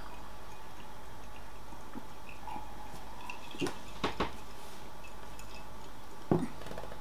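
Quiet sipping and swallowing of a drink from glass mugs, then a few short knocks as the glasses are set down on a table, over a steady low hum.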